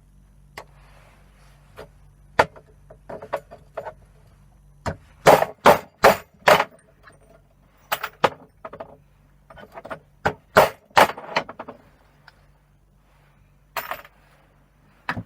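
Irregular sharp knocks and clinks, some in quick clusters, as scrap plugs are taken apart to recover their brass.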